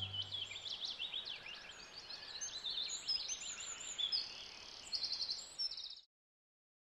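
Songbirds chirping and trilling in many quick high notes, as the last low chord of the music fades out in the first second. The sound cuts off suddenly about six seconds in.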